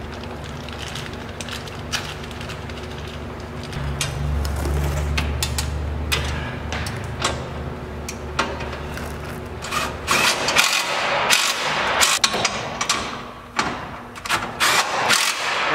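Metal clanks and knocks as a replacement rear bumper is handled and fitted to a pickup truck from underneath, coming thick and fast in the last third. Under them a steady low hum runs and stops about two-thirds of the way through.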